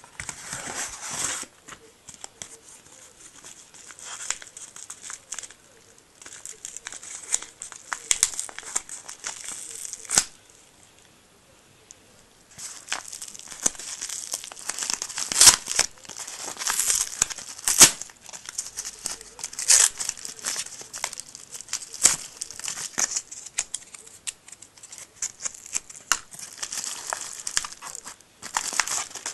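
Paper and cardboard packaging being torn open and crinkled by hand, in irregular rustling bursts with a short pause about a third of the way in and a few sharp snaps.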